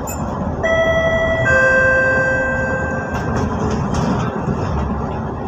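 A two-note electronic chime, a higher note followed by a lower one, each ringing on and fading over about two seconds, over the steady road and engine noise of a moving vehicle.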